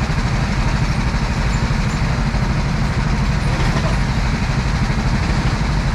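Go-kart engines idling, a steady low rumble.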